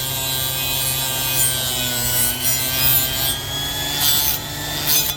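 Orbital sander with a 220-grit Diablo sanding disc running against a steel scraper blade held in a vise, grinding off rust and metal. A steady motor hum runs under it, broken by several short bursts of harsh grinding in the second half as the angled disc bites the steel.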